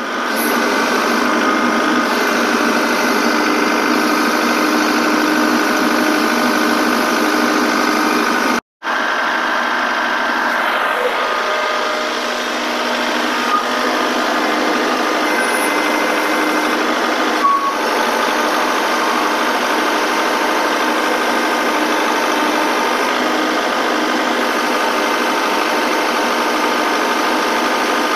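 Kubota compact tractor's diesel engine running steadily with a constant whining tone while the front loader hydraulics lift and tilt a steel tote cage. The sound cuts out briefly about nine seconds in.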